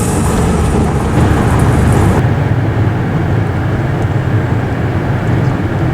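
Steady low rumble of a car driving at speed, heard from inside the car. Music over it cuts off abruptly about two seconds in.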